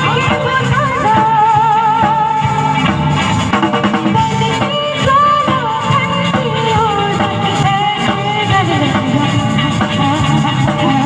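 Song with a sung melody over drums and guitar, at a steady loud level.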